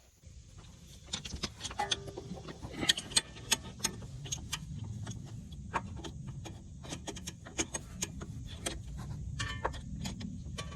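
Irregular metallic clicks and clinks of hand tools and parts being handled while a power steering hose is worked off under the hood, over a low rumble of handling noise.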